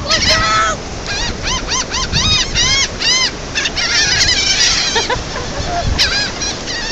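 Seagulls calling around a feeding flock: quick series of short, arched squawks, several birds overlapping, busiest in the first half and again near the end, over a steady low rumble.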